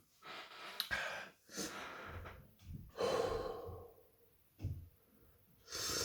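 A man breathing hard in and out through his mouth, about five breaths with a longer exhale about three seconds in, as he rides out the burn of a superhot chili pepper.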